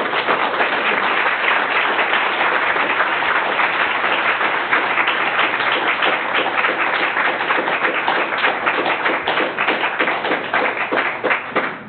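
Audience applauding: dense, steady clapping from many hands that stops near the end.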